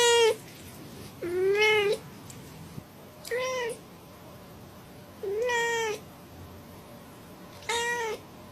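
A cat meowing over and over, about every two seconds. There are four full meows after the end of one at the very start, each one bending up and then down in pitch.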